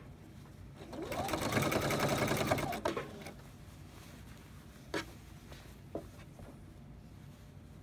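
Electric domestic sewing machine running a straight stitch through flannel and ribbing for about two and a half seconds, the needle strokes speeding up and then slowing as the foot pedal is eased off, before it stops. Two light clicks follow, about five and six seconds in.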